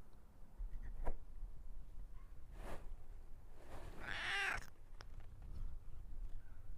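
Domestic cat meowing: two short calls, then one longer, louder meow about four seconds in.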